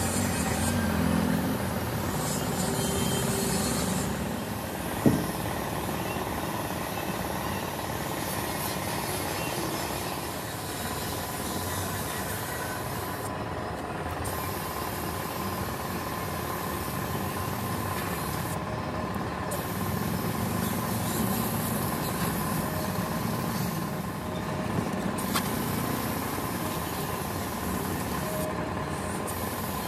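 Compressed-air spray gun hissing steadily while spraying paint, the hiss cutting out briefly four times as the trigger is let go and squeezed again. A sharp knock sounds about five seconds in.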